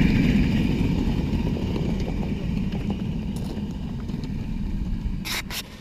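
A 7½-inch gauge live steam locomotive rolling along the track with a low rumble and wheel clatter, fading steadily as it moves away. Two short sharp noises come near the end.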